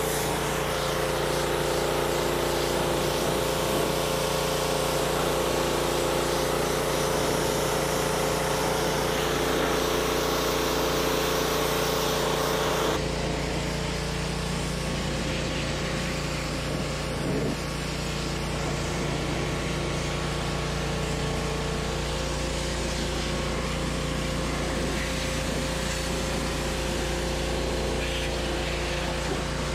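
Gas pressure washer with a Briggs & Stratton CR950 engine running steadily, its 15-degree yellow-tip jet hissing as it sprays. About halfway through, the sound abruptly turns duller, with less hiss and more low rumble.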